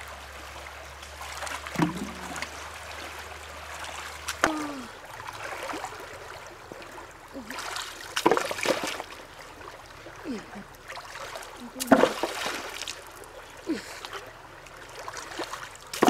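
Shallow stream running over rocks, with hands splashing and plunging into the water every few seconds as someone wades and gropes among the stones.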